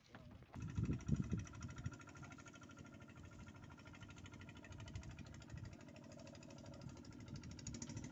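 A small engine running steadily, its rapid even pulses starting about half a second in, with a few loud low thumps around the first second.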